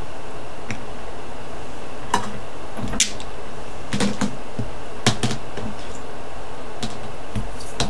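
Scattered small clicks and taps, about nine in all and irregularly spaced, of small craft items being handled on a work table, over a steady faint hiss.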